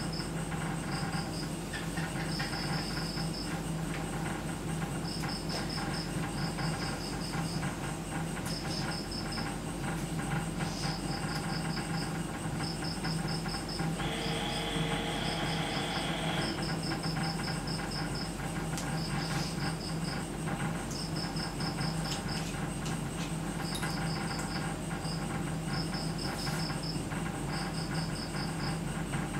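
Crickets chirping in short pulsed trills about once a second, over a steady low hum. About halfway through, a brief hiss lasts a couple of seconds.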